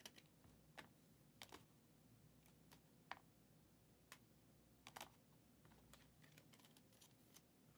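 Near silence with faint, irregular light clicks and taps, a dozen or so scattered unevenly.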